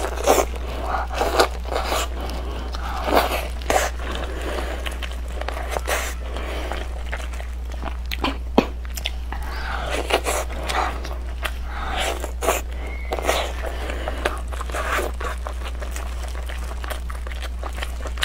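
Close-up eating sounds: a person bites, tears and chews meat off a large bone, with irregular wet smacks and sharp clicks. A steady low hum runs underneath.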